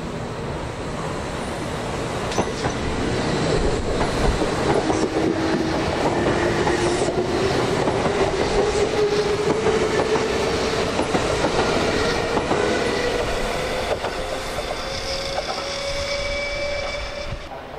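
Kintetsu electric train pulling away, its motor whine rising steadily in pitch as it accelerates, with the wheels clacking over rail joints. It grows louder through the middle, then drops near the end.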